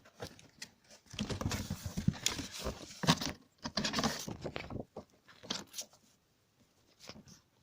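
Paper packaging being handled and torn open: irregular crinkling and tearing with scattered clicks, busiest in the first few seconds and thinning out after about five seconds.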